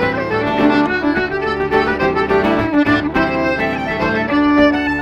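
Lively Irish traditional tune played live by a fiddle, accordion and guitar trio, the fiddle carrying a quick run of melody notes over strummed acoustic guitar.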